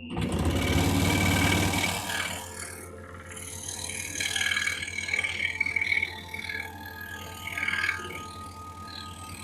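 Excalibur EX21 scroll saw running and cutting a piece of wood flooring. It is loudest for the first two seconds, then runs steadily with a shifting whine as the blade works through the board.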